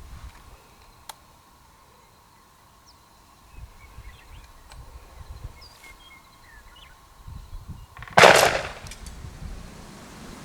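A single shotgun shot about eight seconds in.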